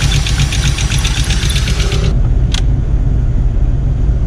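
1986 VW Golf 2's 1.8 GX four-cylinder engine idling rough, chugging like a tractor and rattling the whole car, with a fast even ticking over it. About halfway the ticking drops away and the engine sounds muffled, as from inside the cabin, and a single click follows.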